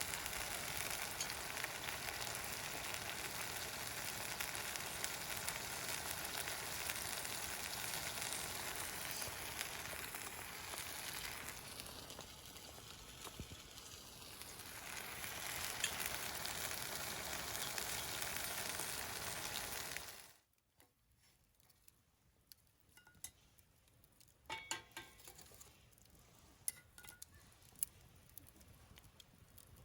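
Food sizzling in a hot pan, a steady dense hiss that eases briefly midway. About two-thirds of the way through it cuts off to a quiet wood fire crackling with scattered small pops.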